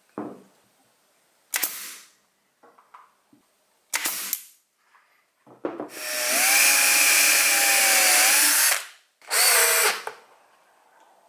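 Cordless drill-driver driving screws into birch plywood: a few short bursts and one longer run of about three seconds in the middle, the motor whining steadily as the screw goes in.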